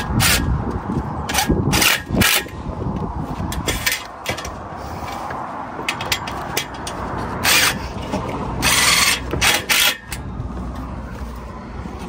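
Cordless impact driver in several short bursts, driving the clamp bolts that hold a solar panel to its roof rail, the longest burst about two-thirds of the way through.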